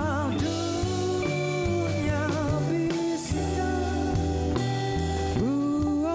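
A man singing a slow ballad in held, wavering notes, backed by a live band of bass guitar, guitar and drums.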